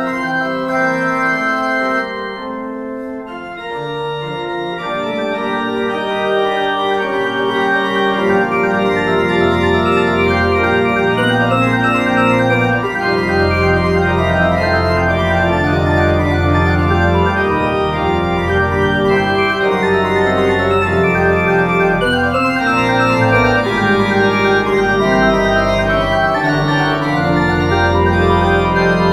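Organ music played as the postlude after the benediction: held chords that change slowly, with deep bass notes joining about ten seconds in.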